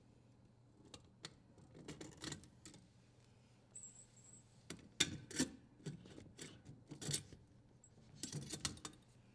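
Faint, irregular light metallic clicks and rattles of small parts being handled: the strain relief nut is unthreaded and the strain relief and power wires are pulled free of the dishwasher's terminal box.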